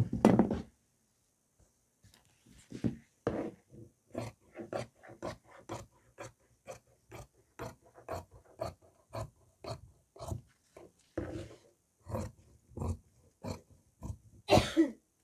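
Tailor's shears cutting through heavy coat fabric on a table: a steady run of snips, about three or four a second. Louder handling noise at the start and again just before the end.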